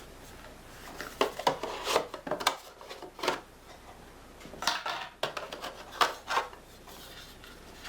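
Doorbell accessories and packaging being handled out of the box: light clicks, clatter and rustling of small hard plastic and metal pieces, in two spells.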